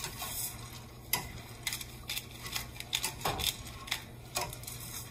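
Hand pepper grinder twisted over a steel pot, giving a string of irregular clicks, while a spatula stirs and scrapes in the pot.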